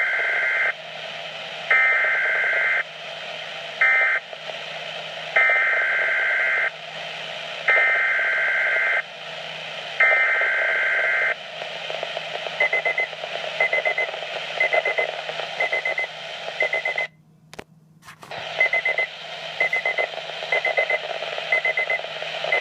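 Weather radio receiving an emergency alert: the digital alert header plays as a series of loud, buzzy two-tone data bursts, each up to a second or so long, over radio static. Then come short high electronic alert beeps about once a second, with a brief dropout partway through.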